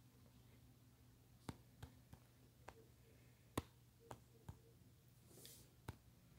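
Faint, irregular taps of fingertips on a phone touchscreen, about eight sharp clicks with the loudest just past the middle, over a low steady hum, with a short hiss near the end.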